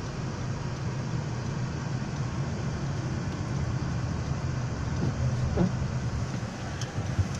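Steady road and engine rumble of a 2019 Honda Civic driving on snowy roads, heard from inside the cabin, with one short squeak a little past five seconds in.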